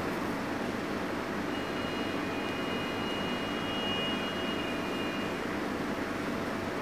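Steady hiss and low hum of room background noise. A faint high-pitched tone comes in about one and a half seconds in and fades out about five seconds in.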